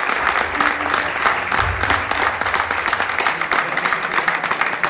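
Audience applauding, many hands clapping densely together.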